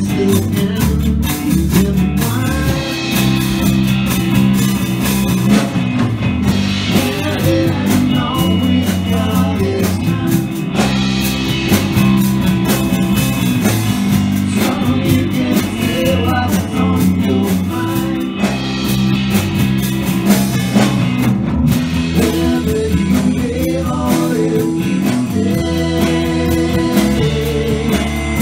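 Live blues-rock band playing: electric guitars and a drum kit with a steady low groove, and a woman's lead vocal coming in and out in phrases.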